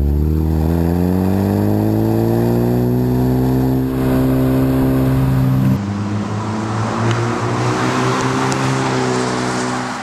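2014 Ford Focus ST's turbocharged 2.0-litre four-cylinder engine heard through a MagnaFlow cat-back exhaust, rising in pitch as the car accelerates, then holding steady. About six seconds in there is a cut: the engine becomes fainter under a rush of road noise and climbs in pitch again.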